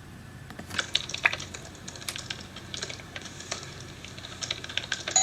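Computer keyboard keys being pressed, irregular light clicks a few times a second, starting about half a second in.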